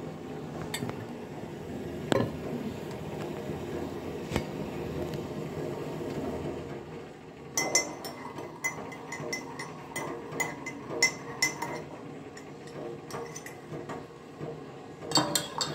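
A metal spoon clinking against the inside of a ceramic mug while stirring. There are a few single clinks at first, then from about halfway a run of quick, ringing clinks.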